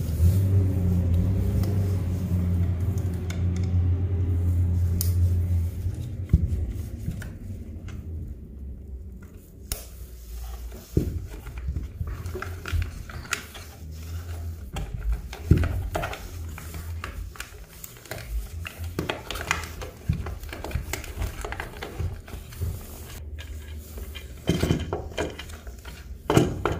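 Gloved hands handling wiring in a plastic junction box: scattered sharp clicks and knocks of plastic lever connectors and wire ends, with a cluster of clicks near the end as the plastic box lid is fitted. A low steady hum sits underneath for the first several seconds, then stops.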